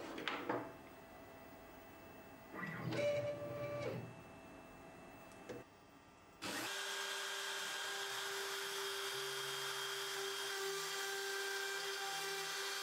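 CNC router stepper motors whine briefly twice, the second time rising and falling in pitch as the axis speeds up and slows. About six and a half seconds in, the Makita trim-router spindle cuts in suddenly and runs steadily with a high hum and hiss as the bit carves into MDF.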